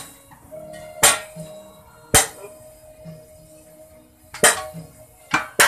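Sharp metal clangs of steel bars and tyre irons striking truck tyre beads and wheel rims while breaking the tyres off their lock-type rims: about six hard strikes at uneven intervals of roughly a second, each ringing briefly.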